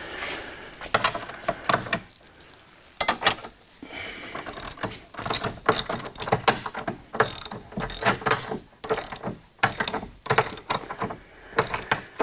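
Ratchet wrench clicking in quick, repeated strokes while tightening the bolts that mount a bench vise to the workbench. It pauses briefly about two seconds in, then carries on in short runs of clicks.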